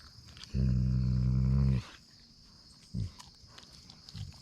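A wolfdog growling over a deer carcass while the pack feeds: one low, steady growl lasting about a second, followed by a shorter low growl about three seconds in.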